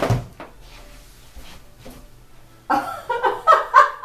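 A short, loud, sudden sound right at the start. Then, about two and a half seconds later, a run of loud wordless vocal outbursts from a person.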